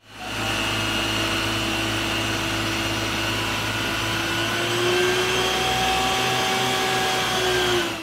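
Steady mechanical drone with a hiss: an Isuzu water tanker truck's engine driving its pump while the roof water cannon sprays a long jet. The pitch and level rise slightly about halfway through.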